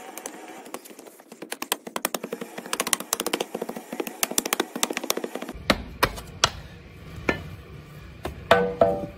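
Hand sand rammer tamping molding sand into a steel casting flask: a fast run of sharp taps, then a few separate heavier knocks, and a short ringing metallic clank near the end.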